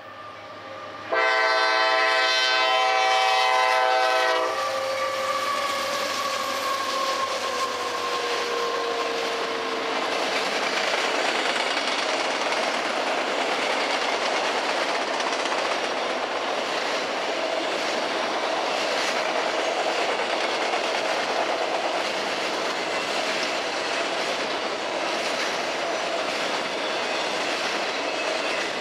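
CSX freight train led by a GE CW44AC and an EMD SD70MAC. The locomotive horn sounds one loud, long blast about a second in, lasting some three seconds, followed by a tone that slides down in pitch as the locomotives pass. Then a long string of autorack cars rolls by with a steady rumble of wheels on the rails.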